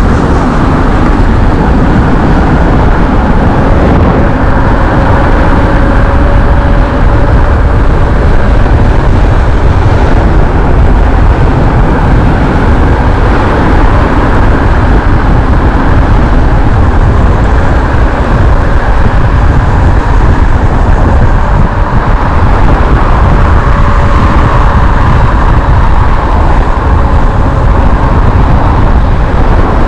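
Steady, loud rush of wind over an action camera's microphone and tyres rolling on a dirt trail during a mountain-bike descent.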